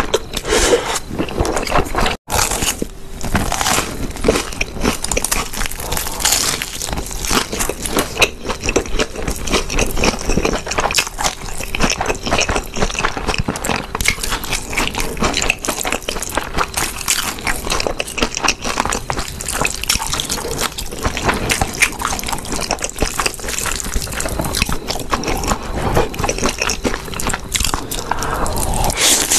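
Close-miked eating of spicy instant noodles: a continuous stream of wet slurping, chewing and mouth sounds. There is a brief break about two seconds in.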